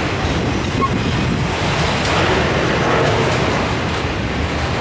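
Freight train's autorack cars rolling past at close range: a steady rumble and rush of wheels on rail.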